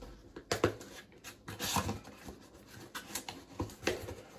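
A cardboard shipping box being opened by hand: irregular scrapes, clicks and rustles of cardboard and tightly packed packing material.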